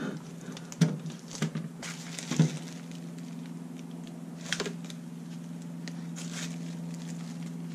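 Hard plastic dash trim panels being handled: a few sharp clicks and knocks, the loudest about a second in and again about two and a half seconds in, with some crinkling of bubble wrap, over a steady low hum.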